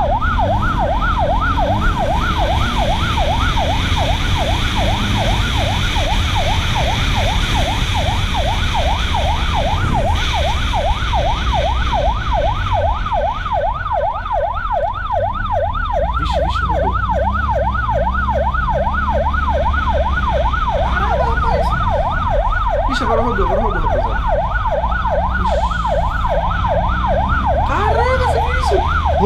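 Police siren in a fast yelp, rapidly rising and falling without a break, over the steady rumble of a motorcycle engine during a pursuit.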